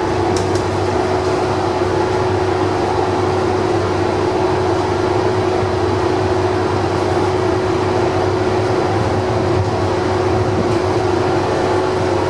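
Rome Metro Line C train running along the track at a steady speed: an even rumble with a constant hum.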